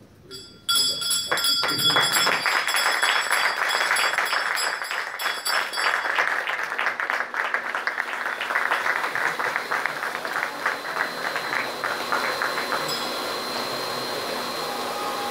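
Ceremonial brass hand bell rung repeatedly for about five seconds to mark the fund's stock exchange listing, over applause that carries on and dies away near twelve seconds. Near the end, stage spark fountains start with a steady hiss and a thin whine.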